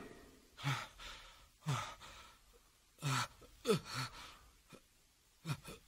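A man's pained gasps and groans, about five short breaths sliding down in pitch, spaced with pauses between them.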